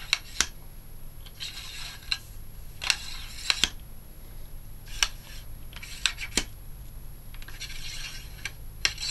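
Cleaning rod with an oiled patch pushed up and down a .22 air rifle barrel: short scraping strokes of the patch through the bore, with sharp clicks and knocks of the rod against the metal every second or so.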